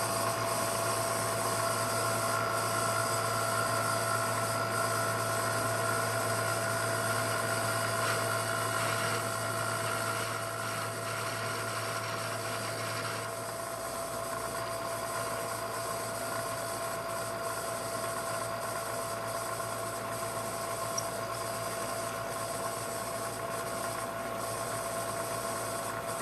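Bridgeport milling machine running an end mill through aluminium plate on a facing pass: a steady whine of the spindle over the hiss of the cut. About halfway the low hum drops out and the sound gets a little quieter.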